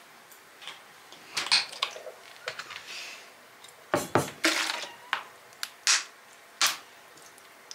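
Plastic colander and bowl holding lettuce in water set down on a stone countertop: several separate knocks and clatters with water sloshing, the busiest stretch about four seconds in.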